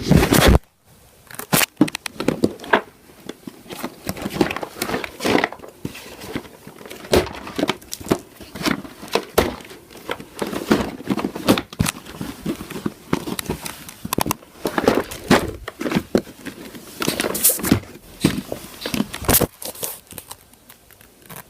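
Board game pieces and packaging being handled: irregular crinkling, rustling and light clicks, some louder than others. A louder noise cuts off about half a second in.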